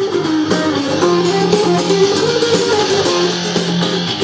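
Rock instrumental with electric guitar playing through a JBL Flip 2 portable Bluetooth speaker, streamed from a phone. The music comes in abruptly after a brief gap and then plays at a steady loud level.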